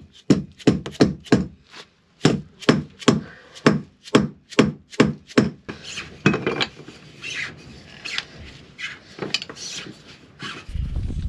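Hammer blows on a tight through-hull skin fitting in a wooden hull, about three a second with a short pause near two seconds in, knocking the seized fitting free. After about six seconds the blows stop and give way to softer scraping and clicking as locking pliers grip and work the fitting. A low steady hum starts just before the end.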